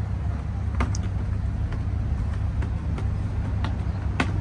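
A plastic minnow bucket and its snap-on lid clicking and knocking a few times as they are handled, over a steady low rumble of road traffic.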